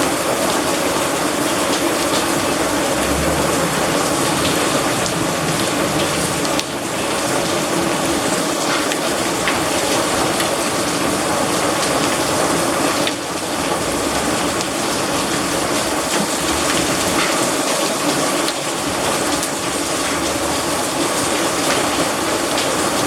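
Heavy rain mixed with hail pelting hard surfaces: a dense, steady rush of water peppered with many sharp ticks of stones striking.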